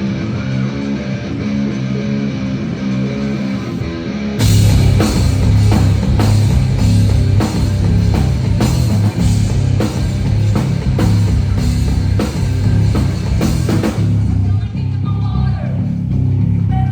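Live rock band playing loud, recorded from the audience. A guitar riff plays alone at first; about four seconds in the drums and bass come in hard with a steady beat, and near the end the drums drop out, leaving guitar and bass.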